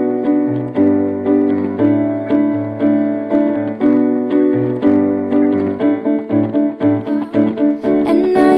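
Solo piano playing a pop-song accompaniment: chords struck about twice a second over sustained low bass notes.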